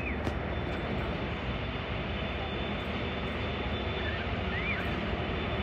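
Diesel engine of an SCT class diesel-electric locomotive running with a steady low drone as the locomotive moves slowly along the track.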